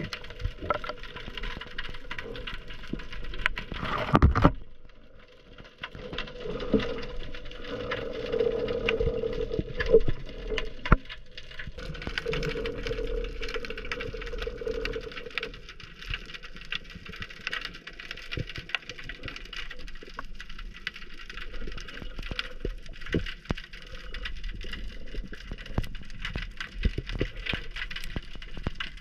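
Underwater ambience picked up by a diver's camera: a dense, continuous crackle of fine clicks. About four seconds in there is a loud rush that cuts off into a short lull, and a steady hum runs in the middle and stops about sixteen seconds in.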